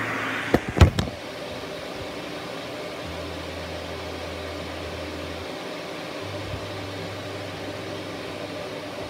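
Shark Navigator Lift-Away Professional upright vacuum cleaner running steadily, with a few sharp knocks in the first second.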